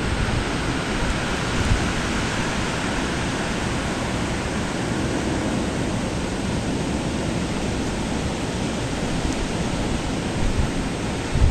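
Steady rushing of blizzard wind, buffeting the microphone, with a low thump near the end.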